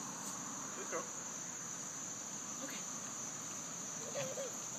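Insect chorus singing steadily at a high pitch.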